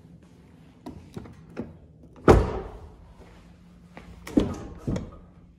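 Pickup truck cab door being worked: a few light latch clicks about a second in, then a loud thunk about two seconds in and two more thunks near the end.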